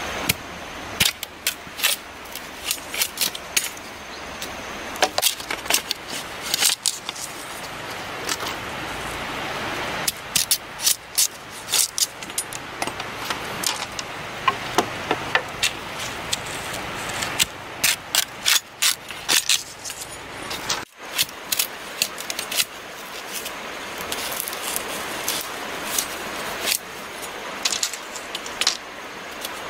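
Machete chopping green bamboo: sharp, bright knocks in irregular quick runs, over a steady background hiss.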